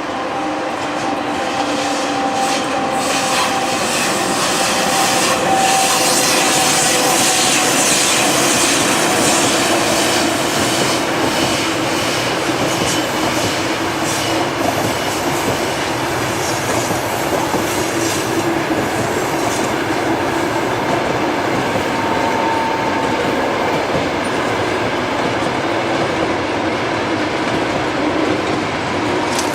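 Passenger train behind a ChS7 electric locomotive running past: steady rumble of wheels on rail with rapid clattering over the rail joints, loudest about five to nine seconds in, and brief high squealing tones from the wheels.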